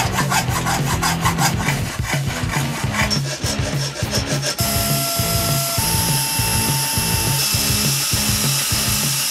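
A hacksaw and then a metal file working a small aluminium block in quick back-and-forth strokes. A little over four and a half seconds in, a rotary tool takes over with a steady high whine, drilling through the aluminium.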